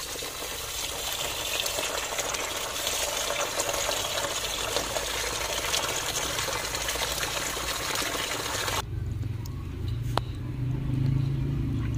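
Tap water pouring into a steel bowl of rice while a hand stirs the grains to wash them. The stream stops abruptly about nine seconds in, and a lower, duller sound follows as the milky rinse water is tipped out of the bowl.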